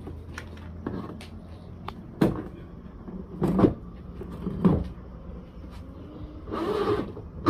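Hollow knocks and bumps of a plastic tanquinho (small top-loading washing machine) cabinet being tipped upright and set down on a concrete floor: three sharp knocks about a second apart, then a longer, rougher handling noise near the end.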